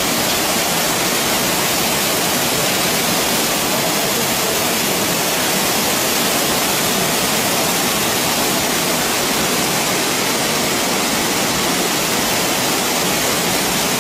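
Steady rush of a waterfall, a loud, even hiss that does not change.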